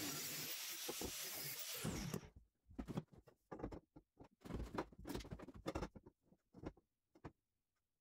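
Angle grinder grinding a steel roll-cage tube, a steady noise that cuts off about two seconds in. After that comes a run of irregular knocks and clunks as the steel tube is handled and test-fitted in the cage.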